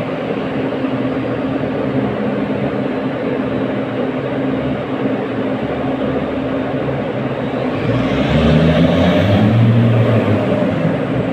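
Heavy diesel engine running steadily with a low hum, swelling louder for a couple of seconds about eight seconds in before settling again.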